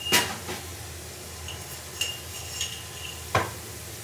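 Small metal spoon clinking against a dish or container about five times, each clink ringing briefly; the loudest come right at the start and just before the end.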